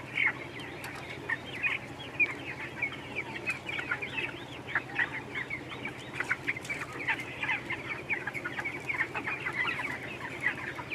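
A flock of young broiler chickens peeping all together, a dense run of many short high chirps, over a low steady hum.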